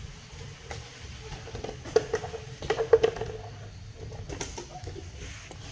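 A few short, low pitched calls about two to three seconds in, over a steady low outdoor rumble and scattered light clicks.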